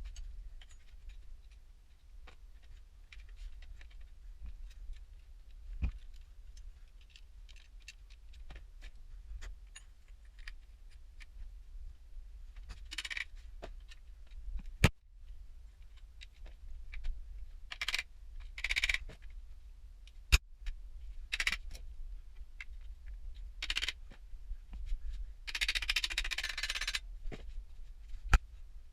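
Hand work on a motorcycle wheel: scattered light clicks and taps of small metal parts and tools being handled, with a few short scraping rubs, the longest about a second and a half, late on.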